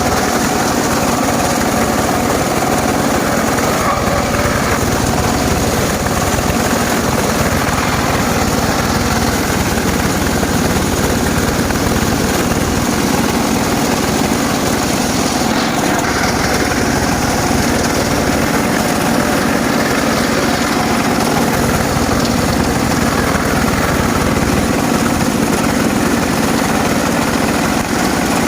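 Homemade circular saw rig running steadily while cutting acacia wood.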